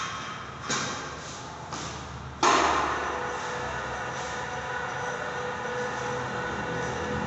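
A few light knocks, then about two and a half seconds in an electric chain hoist starts with a sudden jolt and runs with a steady whine, hauling a goods-lift platform upward.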